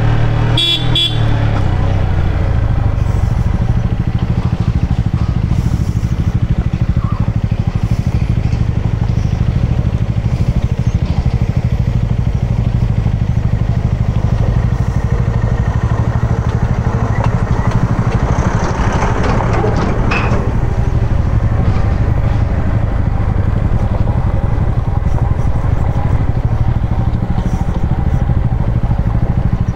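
Yamaha MT-15's single-cylinder engine running steadily while the motorcycle is ridden slowly over a broken, gravelly road, with a brief swell of louder noise about two-thirds of the way through.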